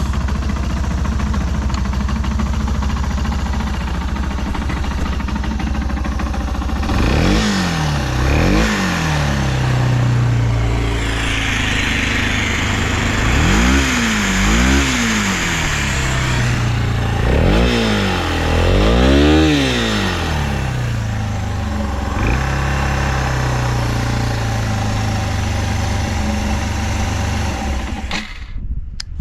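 Yamaha Serow 225WE's air-cooled single-cylinder four-stroke engine, breathing through a Delta Barrel 4 up-muffler, idling and then revved in quick throttle blips three times, mostly in pairs, each time settling back to idle. It is switched off near the end. It runs without abnormal noise.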